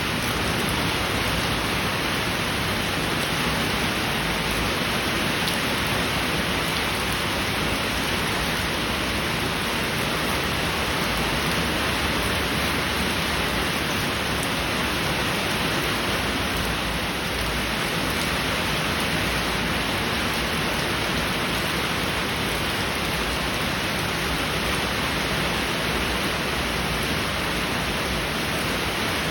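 Heavy rain falling steadily in an even hiss, with no thunder.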